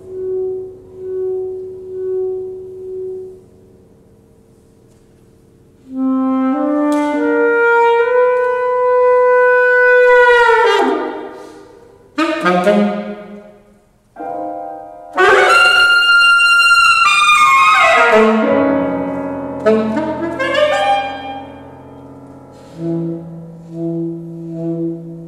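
Alto saxophone and grand piano playing a classical duet. Soft piano notes open, then after a short hush the saxophone enters loudly with a rising line and a long held note that sags and falls away. It climbs to a second loud, high held note near the middle and comes down, with low piano chords under it toward the end.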